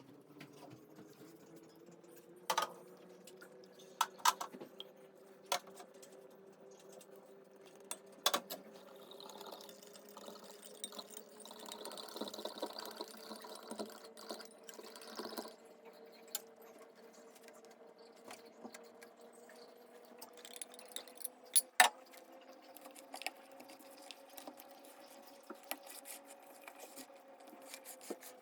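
Food being prepared by hand: scattered sharp clicks and knocks of utensils and containers, and a stretch of liquid pouring or mixing from about ten to sixteen seconds in. Under it runs a steady low hum that slowly rises in pitch.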